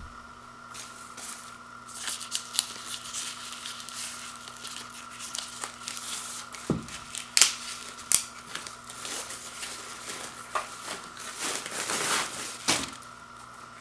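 Plastic wrapping crinkling and rustling as it is pulled off a small loudspeaker. It comes in irregular bursts with a few sharper crackles, the loudest about seven seconds in and again around twelve seconds.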